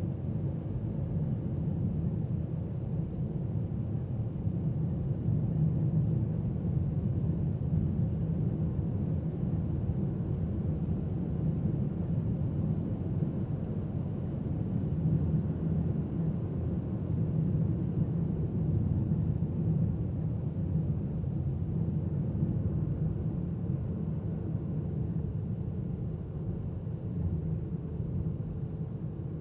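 Car driving on a snowy road, heard from inside: a steady low rumble of engine and tyre noise that holds level throughout.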